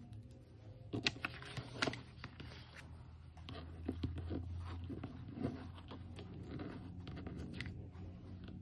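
Washi tape being torn and pressed onto a paper planner page, with paper rustling and scratching under the fingers. Two sharp crinkles come about one and two seconds in, all over a low steady hum.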